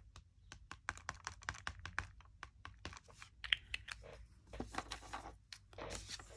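Light, irregular tapping clicks, several a second, as the tip of a small alcohol-ink bottle is dabbed onto paper to dot ink. There are two short rustles in the second half.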